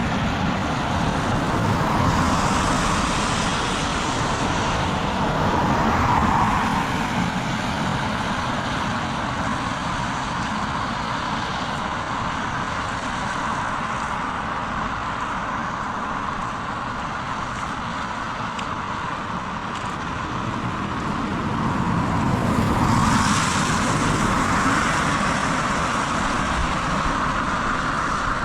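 Steady heavy rain, with vehicles passing on a wet road. The tyre hiss swells up about two seconds in and again near the end.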